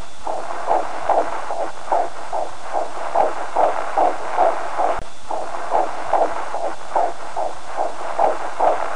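Fetal heartbeat picked up by a fetal Doppler: a rapid, even pulsing of about two and a half beats a second over steady hiss, with a brief dropout about five seconds in.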